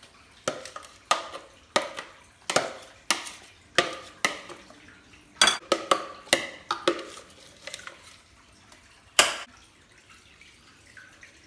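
Metal spoon clinking against a bowl while stirring, in a run of sharp clinks about every half second. The clinks thin out after about seven seconds, with one last loud clink about nine seconds in.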